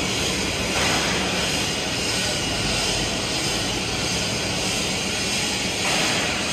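Steady, loud, even rushing noise of a fabrication workshop during TIG welding of a stainless steel pipe joint, with the arc going out partway through.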